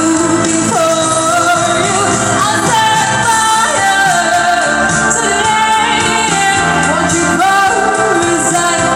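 A solo singer performing a pop song over backing music, holding long notes with pitch glides between them.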